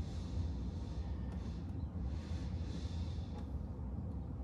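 Steady low hum with two soft breaths, like a person sighing out through the nose, in the middle.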